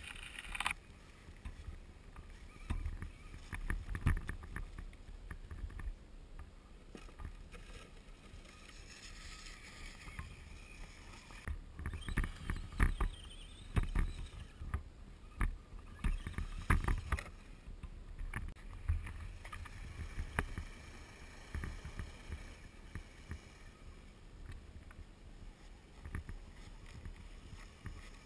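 Low rumble and handling noise on the camera's microphone, with irregular crunching knocks and, at times, a faint whine rising and falling from a scale RC crawler truck's electric motor as it climbs over snowy rocks.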